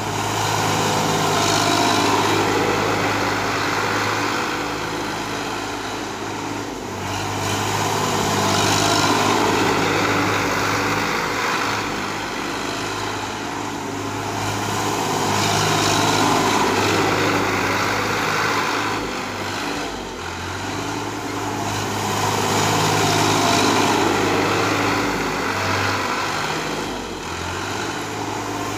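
Sonalika 740 DI tractor's diesel engine running at full speed as it drives over paddy straw. The engine sound swells and fades about every seven seconds as the tractor comes near and moves away.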